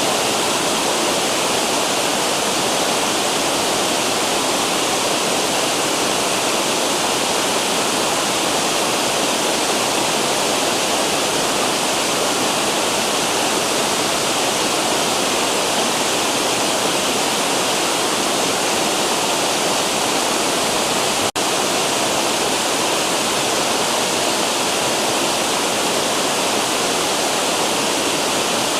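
Waterfall cascading in a river: a steady, loud rush of falling water, briefly cut for a split second about three-quarters of the way through.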